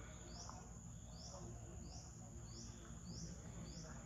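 Forest ambience: a steady high-pitched insect drone, with a short rising chirp repeated every half second or so.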